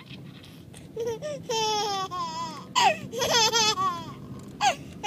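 Baby babbling in several short bursts of high, wavering squeals, over the steady low rumble of a car cabin.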